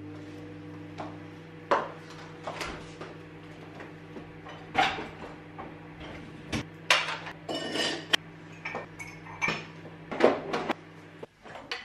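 Kitchen dishes and cutlery clinking and knocking: a dozen or so sharp clinks, with a short stretch of scraping about eight seconds in. A steady low hum from an appliance runs underneath and cuts off shortly before the end.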